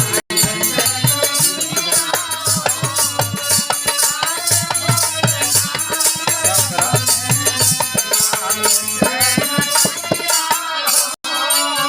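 Bhojpuri birha folk music: a melody over a steady beat of hand drum and a shaker-like rattle. The sound cuts out for an instant just after the start and again near the end.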